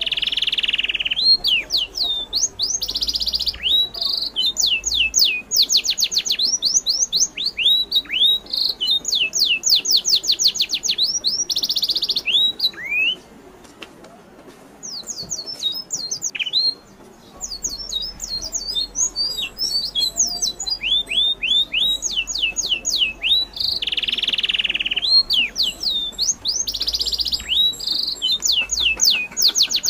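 Birds chirping in fast runs of short, high, sweeping notes, with a pause of a few seconds around the middle.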